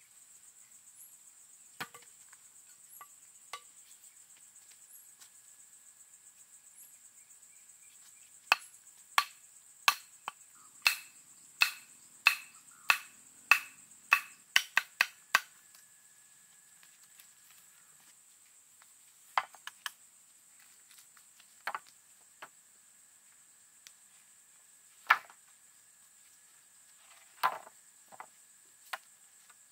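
A hand tool striking wood in a run of about a dozen sharp blows, a little under a second apart and quickening near the end, then a few scattered blows. A steady high insect buzz runs underneath.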